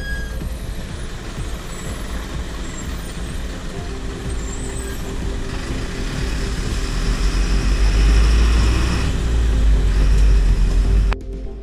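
Truck engine running and tyres rumbling over a bridge deck, heard from inside the cab. The noise swells louder in the second half, then drops suddenly shortly before the end.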